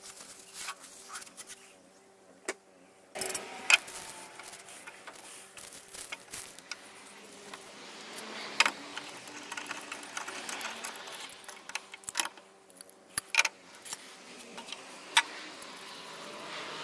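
Irregular clicks, knocks and small metallic clinks of hand work on old wooden drawers, with a few sharper knocks standing out, over a faint steady hum.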